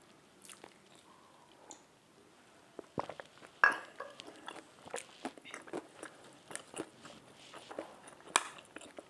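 A person chewing and biting food, with crunches and small sharp clicks starting about three seconds in.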